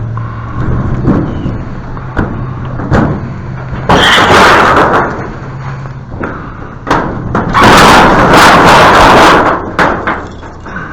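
Spray paint can spraying in two hissing bursts, one about four seconds in and a longer one near eight seconds, with sharp knocks and clacks of handling between them over a steady low hum.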